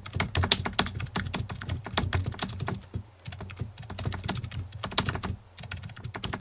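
Computer keyboard typing sound effect: rapid key clicks, with two brief pauses, about three seconds in and about five and a half seconds in.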